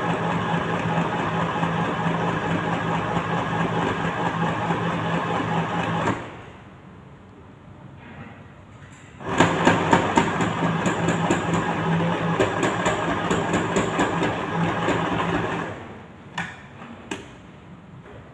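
Sewing machine stitching in two runs of about six seconds each, with a pause of about three seconds between them, then two short clicks near the end.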